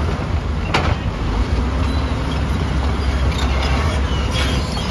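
Heavy diesel engines of tracked excavators and a crawler bulldozer running steadily with a deep low rumble. There is a sharp knock about a second in, and a few lighter knocks near the end.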